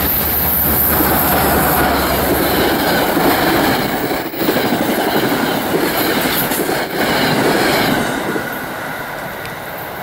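NJ Transit PL42AC diesel-electric locomotive and its commuter coaches passing close at speed: a loud rush of engine, wheels and rails with clicks over the rail joints, easing off near the end as the last cars go by.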